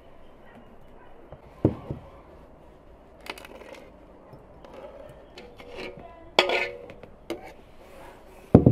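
Metal spoon scraping a steel mixing bowl and clinking against glass jars as raw raspberry and sugar mash is spooned into them. A few sharp knocks and clinks, the loudest about six and a half seconds in and another heavy knock near the end.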